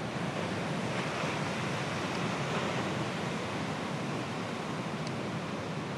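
Heavy ocean surf from a long-period swell breaking along a rocky point: a steady rush of breaking waves and whitewater.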